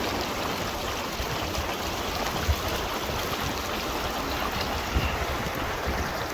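Shallow, fast-moving creek water rushing steadily, with two brief low thumps about two and a half seconds apart.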